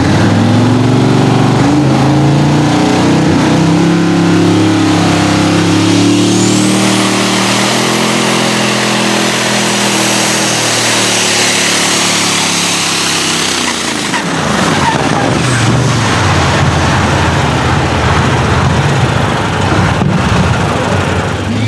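Diesel engine of an Iveco pulling truck at full throttle hauling the sled. Its pitch steps up a few times early on, then sinks slowly as the load builds, and about 14 seconds in it drops back to a lower, rougher running as the pull ends.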